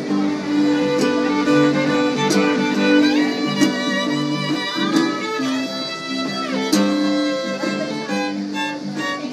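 Fiddle playing a melody with sliding notes over steady guitar strumming: an instrumental break in a live western song.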